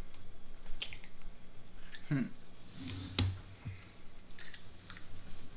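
A few scattered light clicks and knocks of kitchen handling, with a brief low murmur about two seconds in and a dull knock about three seconds in.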